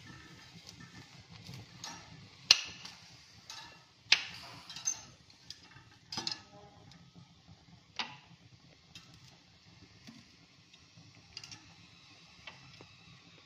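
Stainless-steel kitchen tongs clicking and clinking against a wire grill rack as vegetables are turned over a gas flame. Scattered sharp metallic clicks, the loudest about two and a half seconds in, with fewer and fainter ones after about eight seconds.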